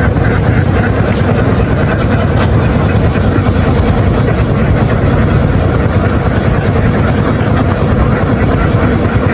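An engine running steadily at a constant speed, a dense low rumble with a faint steady whine.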